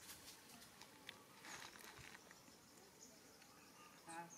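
Near silence: faint outdoor ambience with a few soft clicks and rustles, and a brief pitched sound just before the end.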